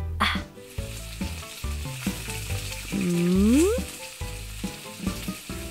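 Sizzle of eggs frying in a pan, a steady hiss that starts about half a second in and cuts off near the end. A swooping cartoon-style tone that dips and then rises is the loudest thing, about three seconds in, over low steady background notes.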